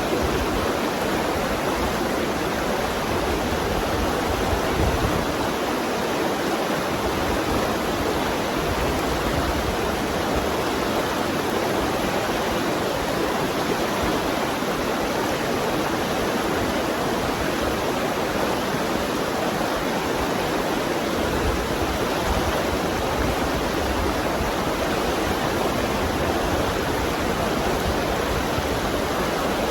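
Fast river current rushing over rocks: a steady, even rush of water.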